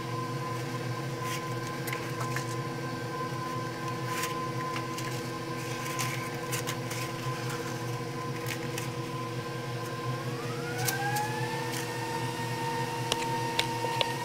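Paper cupcake liners rustling and clicking faintly as they are set into a metal muffin tin. Under them runs a steady machine hum, with a whine that rises in pitch about ten seconds in.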